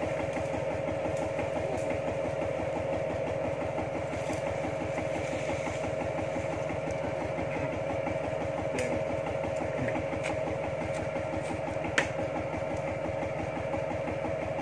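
A homemade farm tractor's small diesel engine idling steadily with an even, fast firing beat. There is one sharp click about twelve seconds in.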